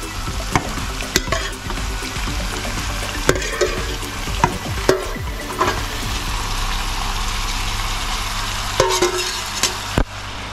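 Curry sauce with onions and peppers sizzling steadily in a stainless pan as flaked lobster and trunkfish meat is scraped off a metal bowl into it with a metal spatula, with scattered clicks and short scrapes of metal on metal.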